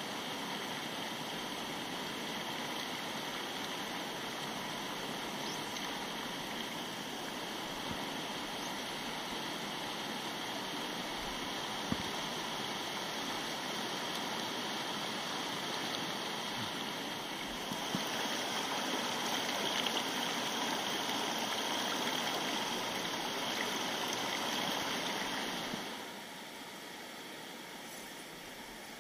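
Rocky mountain river rushing over boulders and riffles: a steady flowing-water rush that swells a little past the middle, then drops to a softer flow near the end.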